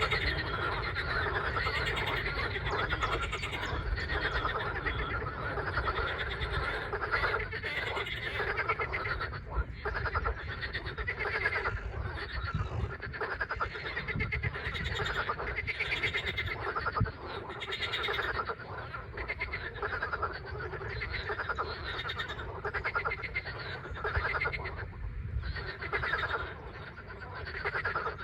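A dense chorus of many frogs croaking continuously, the calls overlapping into a steady, rapid pulsing.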